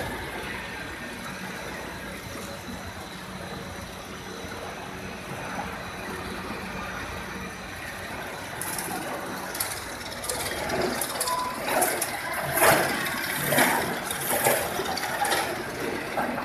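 Snack food processing line machinery running with a steady mechanical hum. From about halfway it gives way to louder, irregular rattling and clattering.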